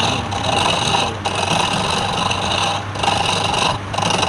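Turning tool or abrasive working spinning wood on a lathe, in repeated scraping passes about a second long with short breaks, over the steady hum of the lathe motor.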